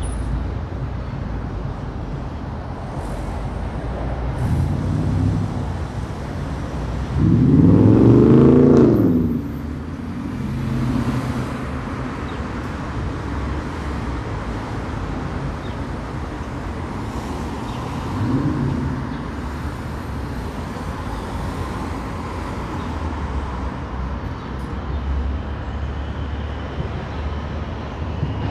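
City street traffic: a steady rumble of passing cars. About eight seconds in, one vehicle's engine passes close and is loudest, its pitch rising then falling, and a quieter one passes later on.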